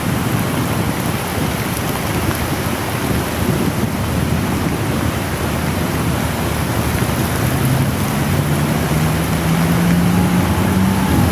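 Heavy downpour hissing steadily, mixed with the rush of riding through it. In the last few seconds a motor engine's hum rises and grows louder.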